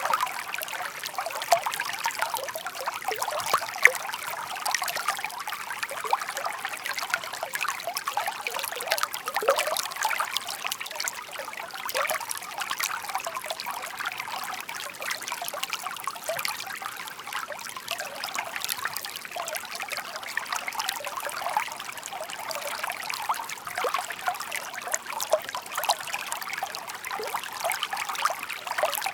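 Shallow park stream babbling over stones: a continuous bright trickle with many small splashes and plinks.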